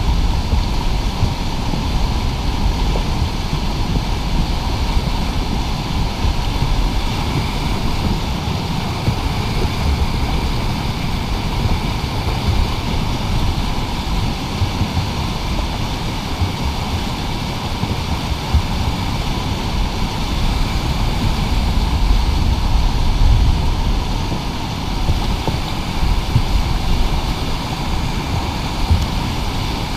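Steady rush of whitewater river rapids, with wind buffeting the microphone in a heavy, irregular low rumble.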